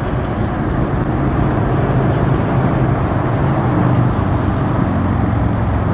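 Road traffic noise: a steady rush of passing vehicles over a low engine hum, swelling slightly.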